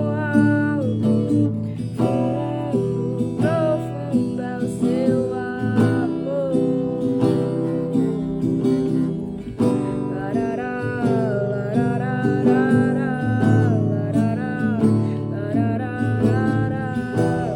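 Worship-song music: acoustic guitar with sustained chords and a gliding melody line over them.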